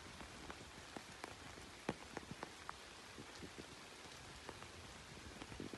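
Light rain falling: a faint steady hiss with many separate drops ticking at irregular moments.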